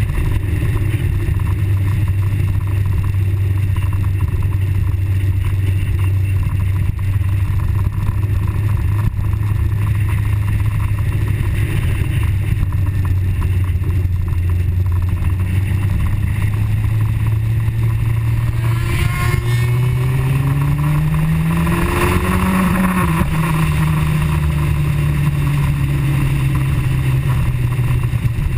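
Suzuki GSX-R 750's inline-four engine heard from the rider's seat, running steadily at cruising speed over wind noise. A little past halfway it revs up in one smooth rising climb for about five seconds, then eases off and falls slowly back to the cruising note.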